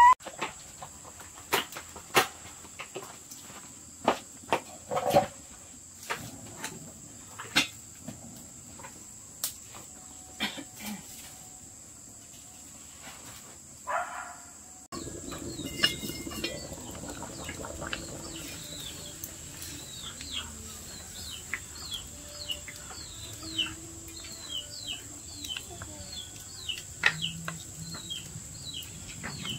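Outdoor rural sound: a steady high insect drone throughout, with sharp knocks scattered through the first half. From about halfway on there is a run of quick high chirps.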